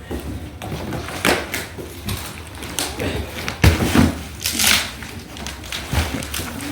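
Handling noise: irregular knocks, scrapes and clatter of items being moved and set down on the floor, with a heavier thud a little past halfway.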